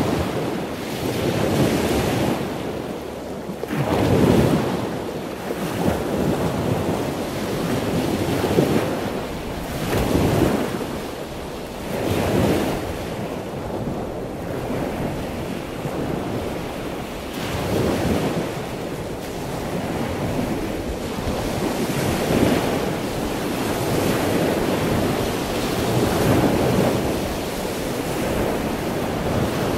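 Rushing sea and wind noise, swelling and easing every few seconds, heard inside a sailboat cabin.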